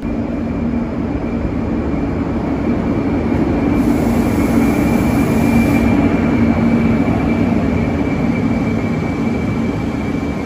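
HXD3C electric locomotive passing a station platform, followed by its green passenger coaches: a loud, steady rolling rumble with a low hum, loudest around the middle.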